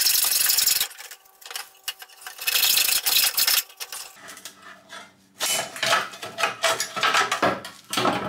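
Hacksaw cutting through a steel exhaust pipe in rasping strokes, which stop about a second in and come again briefly near the middle. The cut pipe then rings, and near the end the loose metal pieces clank and clatter as the section comes free.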